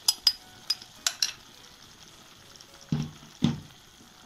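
Metal spoon clicking against a glass bowl as boiled peas are scraped out into a kadhai: a handful of sharp clicks in the first second and a half, then two duller knocks about three seconds in, over a faint sizzle of masala frying in the pan.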